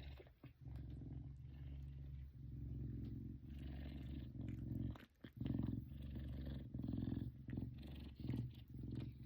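F2 Savannah cat purring close up, a steady pulsing rumble that breaks off briefly about halfway through.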